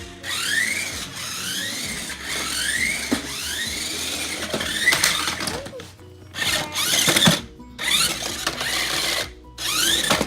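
Toy remote-control car's small electric motor whining in spurts, the pitch sweeping up and falling back again and again as it accelerates and lets off, with short stops between runs.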